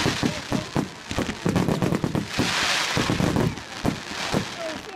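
Fireworks display: a rapid string of bangs and pops, with a burst of crackling hiss at the start and another about two and a half seconds in.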